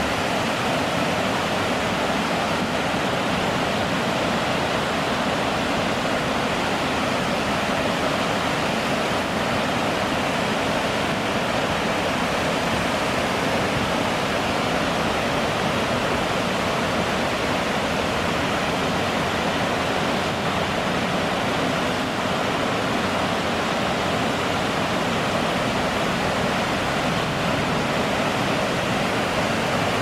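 Copper Falls cascading over tiers of rock ledges: a steady, even rush of falling water.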